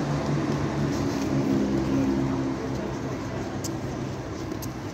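Diesel multiple unit's engines droning at a steady pitch as the train pulls away, fading over the second half.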